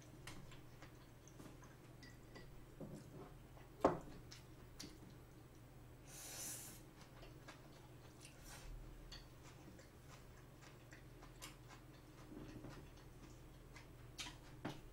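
Faint eating sounds: soft chewing and small mouth clicks as steamed clams and bean sprouts are eaten with chopsticks, with scattered light taps of the chopsticks. One sharper click comes about four seconds in and a short breathy noise a little after six seconds.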